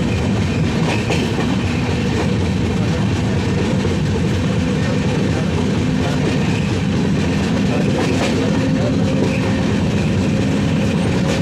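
Passenger train coach running at speed, heard from its open window: a steady rumble of wheels on rails, with a few clacks over rail joints.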